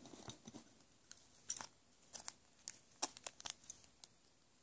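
Faint, scattered crinkles from the foil wrapper of a POP Series 5 Pokémon booster pack being handled: a handful of short, sharp crackles a fraction of a second apart.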